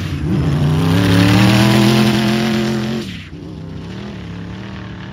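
Sand car engine running at high revs, its pitch climbing slowly as it accelerates across the sand, then dropping off throttle about three seconds in to a lower, quieter run.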